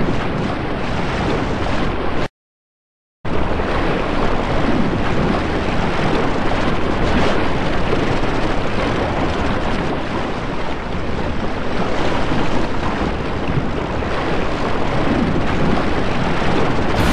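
Loud, steady rushing noise with no clear tone or rhythm, cutting out completely for about a second some two seconds in.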